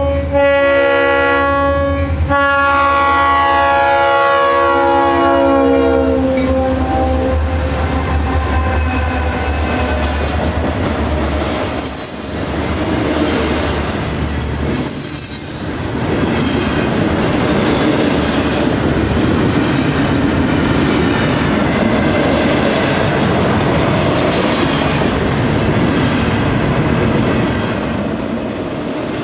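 Diesel freight train passing close by: the locomotive's multi-chime air horn sounds for several seconds, dropping in pitch as it goes past, with the locomotive's engine rumble fading out about fifteen seconds in. After that the freight cars roll by with steady wheel clatter on the rails and a little wheel squeal.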